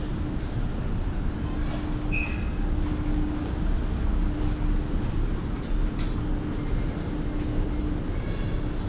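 Airport moving walkway running: a steady low rumble with a constant hum, and a brief high chirp about two seconds in.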